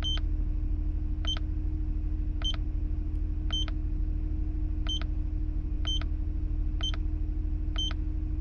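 A vehicle's warning chime beeps steadily, about once a second, over the low, steady rumble of the 2010 Honda Odyssey's V6 engine idling.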